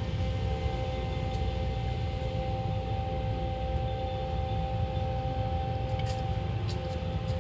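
A machine running steadily in the distance: a low rumble with a constant two-note whine over it.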